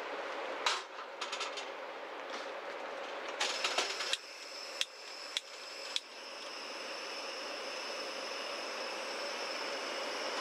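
Metal clinks and clicks as a small lidded pot is set on the steel grate of a two-burner camping gas stove. The burner is then turned on and a steady gas hiss builds toward the end.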